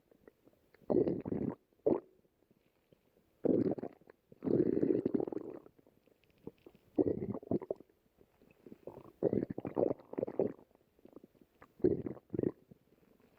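A person's stomach growling and gurgling in a series of irregular rumbling bursts, about seven of them, separated by short quiet gaps.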